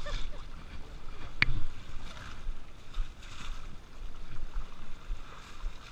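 Water splashing and sloshing in a shallow river as buckets of water are scooped and thrown. A single sharp click sounds about a second and a half in.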